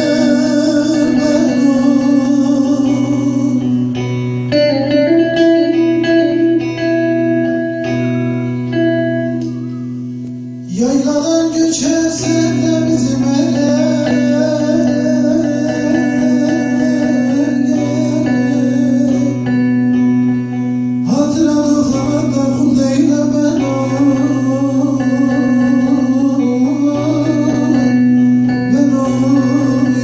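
A man sings a Turkish folk song (türkü) in long, wavering held notes while playing a bağlama (long-necked saz), its plucked strings over a steady low drone. The music fades about ten seconds in, comes back strongly, and re-enters sharply again about twenty seconds in.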